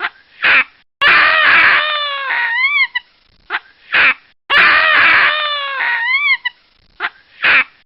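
Baboon calls: a long, harsh, scream-like call that falls slightly in pitch, followed by two short rising-and-falling yelps and a short sharp call. The sequence plays twice in the same form, about every three and a half seconds.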